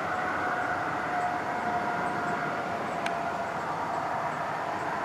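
Steady engine drone with a faint, even high whine, unchanging throughout.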